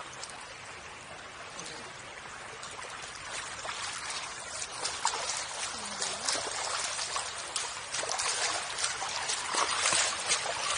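Shallow floodwater rippling and lapping right at the microphone, then footsteps in flip-flops splashing through the ankle-deep water. The splashes grow louder and closer together toward the end.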